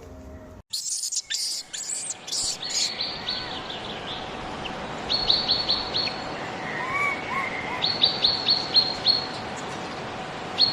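Wild birds chirping: one bird gives quick runs of short, high, falling notes, three times, over a steady outdoor hiss.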